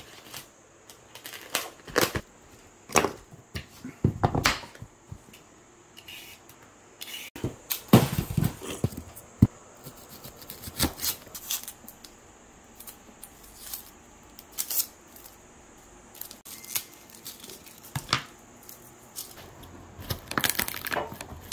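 Kitchen knife cutting vegetables on a wooden cutting board: irregular sharp cuts and knocks of the blade against the wood, a few of them heavier thuds.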